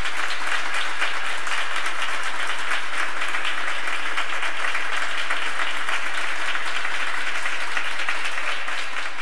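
Audience applauding: steady, dense clapping that starts to fade out near the end.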